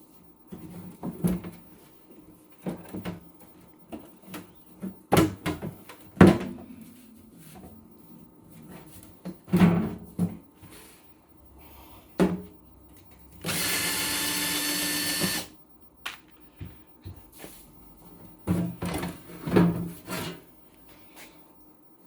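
Clicks and knocks of hand work with tools and parts, scattered throughout. About halfway through, one steady power-tool or machine sound runs for about two seconds and cuts off.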